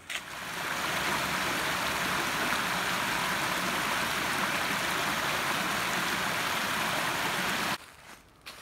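Small woodland creek cascading over flat rock ledges: a steady rush of water that builds up over the first second and cuts off suddenly near the end.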